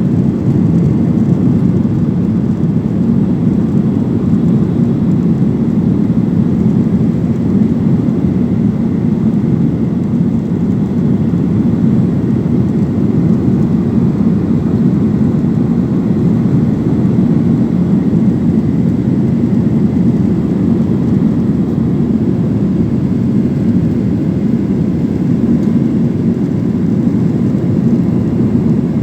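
Steady low rumble of a jet airliner's engines and airflow heard inside the passenger cabin, a GOL Boeing 737 in flight after takeoff, with no change in pitch or level.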